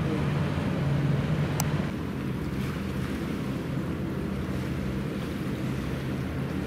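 Hovercraft heard from a distance across the water: a steady low drone from its engines and propellers, with wind on the microphone. It drops a little in level about two seconds in.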